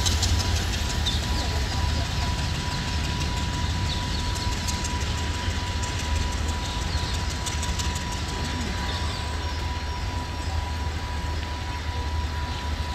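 Sri Lanka Railways passenger train running past on the line, a steady low rumble with short runs of clicking from the wheels over the rail joints near the start and again about five seconds in.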